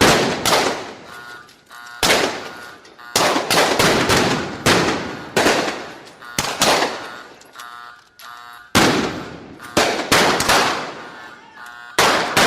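Shootout sound effect: many gunshots in irregular volleys, single shots and quick bursts, each shot trailing off in an echo. Short ringing tones sound between some of the shots.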